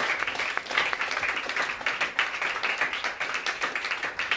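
Small audience applauding, many hands clapping at once.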